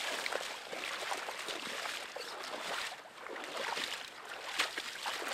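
A person in chest waders wading through shallow water, each step sloshing and swishing through the water and grass in an uneven run of splashes.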